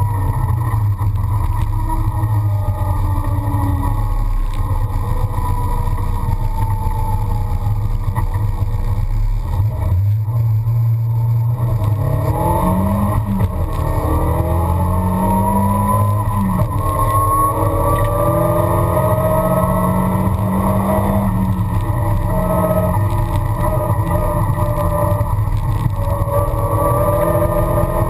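1973 Toyota Celica's four-cylinder engine pulling hard at speed, heard from inside the cabin. The engine note holds steady, then drops and climbs again a few times near the middle as the throttle comes off and back on through the turns.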